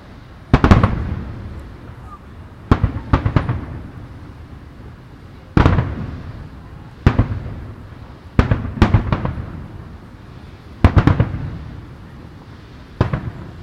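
Aerial fireworks shells bursting in a display: about seven loud booms a second or two apart, several coming as quick double or triple cracks, each trailing off in a rolling rumble.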